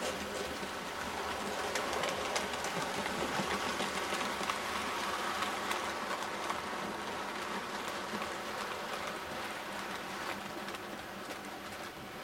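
00 gauge model trains running past each other: a steady whirr from the locomotive motors with rapid clicking of metal wheels over the rail joints. It is loudest a few seconds in and slowly fades.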